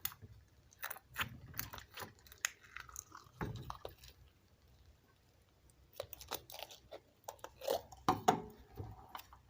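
Slime being squeezed and poked by hand, making irregular sticky clicks and small crackles, with a brief lull about halfway through.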